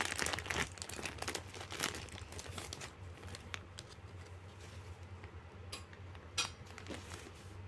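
Clear plastic bag of cotton yarn balls crinkling as it is handled and a ball is pulled out. The crinkling is dense for the first few seconds, then thins out, with a couple of sharp crackles later on.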